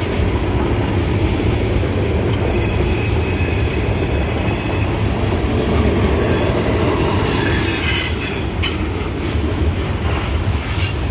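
Freight train rolling steadily past, a continuous rumble of steel wheels on rail. High wheel squeals come and go over it.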